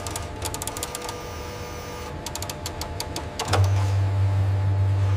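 A small machine mechanism clicking rapidly in short runs, then a loud low hum starts about three and a half seconds in and holds steady.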